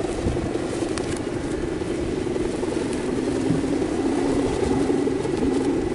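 Steady buzzing drone from a Balinese bebean kite's guangan, a taut ribbon hummer strung on a bow across the top of the kite and vibrating in the wind.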